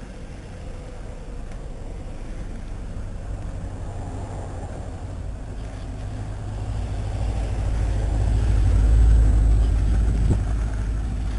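A car driving slowly past close by on a broken-up road, its engine rumble growing louder and peaking about nine seconds in before easing off.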